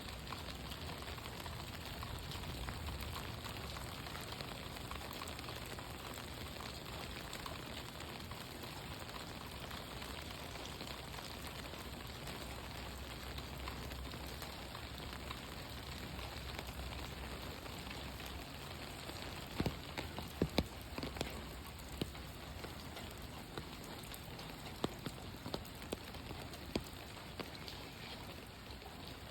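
Steady rain falling, an even hiss of drops, with a few sharper taps from about two-thirds of the way in.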